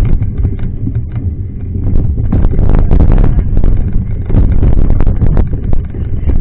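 Wind buffeting the microphone during a mountain-bike ride on a rough trail, with irregular rattles and knocks from the bike.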